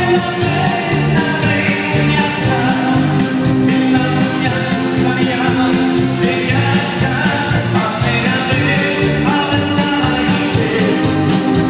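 Live Gypsy-style music played on a keyboard, with a steady beat and a singing voice.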